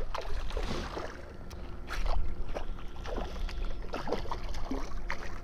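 A hooked fish splashing at the surface of shallow water in several separate splashes, over a low rumble of wind on the microphone.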